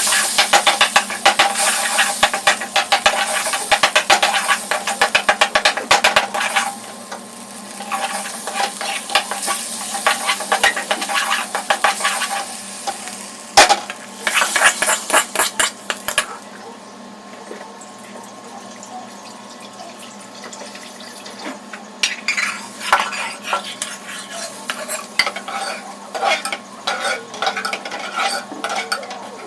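Food sizzling in a pan while a spatula stirs and scrapes it with rapid metal strokes. The stirring is busy for the first few seconds, comes back in a short burst about halfway through, and turns into scattered scrapes near the end.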